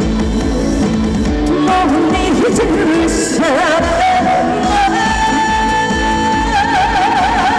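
A woman sings trot over a backing band. About five seconds in she holds a long high note, which swings into a wide vibrato near the end.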